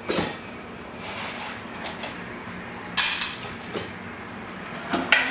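Bowls and dishes being handled on a counter, clinking and clattering, with sharp knocks at the start, about three seconds in, and near the end.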